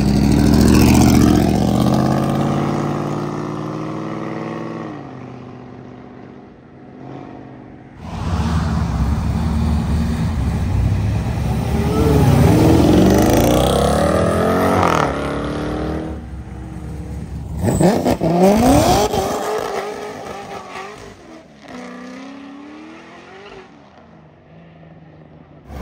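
Several modified cars pulling away one after another: each engine revs up with a rising pitch, goes past and fades off. The sharpest rev comes about two-thirds of the way through.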